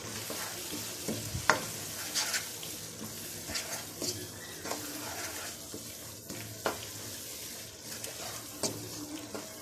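Wooden spatula stirring an onion-tomato masala frying in oil in a wok, the oil sizzling steadily, with a few sharp taps and scrapes of the spatula against the pan.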